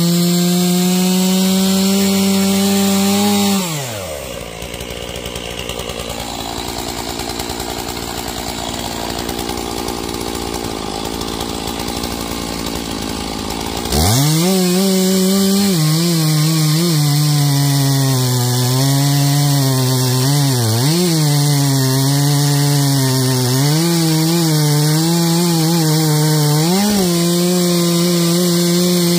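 Stihl MS461 two-stroke chainsaw at high revs. About three and a half seconds in it drops to idle, then it is throttled back up about ten seconds later and cuts through Douglas fir logs, the engine pitch dipping and recovering as the chain bogs under load.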